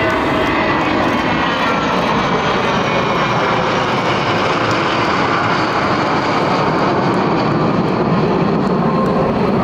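Six CASA C-101 Aviojet jet trainers of the Patrulla Águila flying past in close formation: a loud, steady rush of jet-engine noise.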